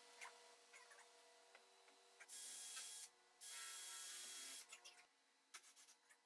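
Cordless drill, a DeWalt 20V Max, driving screws into 2x4 framing lumber in two short runs about two seconds in, the second a little longer.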